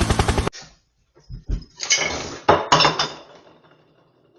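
A fast rhythmic thudding cuts off abruptly about half a second in. After a short pause come a few dull knocks, then a burst of clattering and clinking of hard objects, which fades away.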